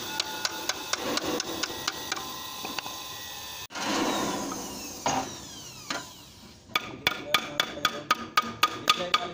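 Thin sheet metal flexing and rattling with a wobbling, falling ring as it is bent over a wooden board with a hand seamer. It starts suddenly about four seconds in and fades over a few seconds, with a knock about a second later. Before and after it, music with a steady clicking beat.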